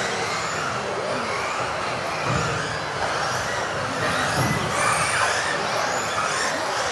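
Several electric off-road RC cars racing together, their motors whining in pitches that rise and fall as they accelerate and brake, over a steady hiss of tyres on the floor.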